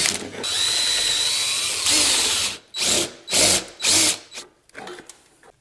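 Handheld power tool running on the dirt bike's exhaust as it is taken apart: one steady run of about two seconds with a thin high whine, then several short blips that tail off.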